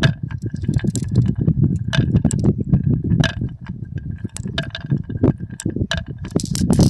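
Marbles rolling down a HABA wooden marble run, a continuous rolling rumble with frequent sharp clicks and clacks as they hit the track pieces and each other.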